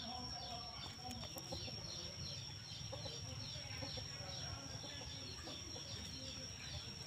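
Outdoor background of chickens clucking faintly, with rapid high chirps and a steady high-pitched whine.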